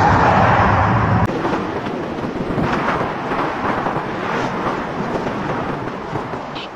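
A car passes close by with a rush of tyre and engine noise, cutting off abruptly about a second in to steady road traffic and wind noise heard from a moving bicycle.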